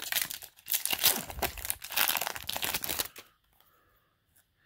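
Foil wrapper of a Yu-Gi-Oh! booster pack crinkling and tearing as it is pulled open by hand, falling quiet about three seconds in.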